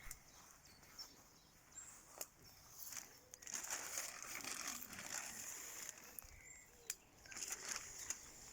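Rustling and crinkling handling noise with a few sharp clicks, under faint birdsong.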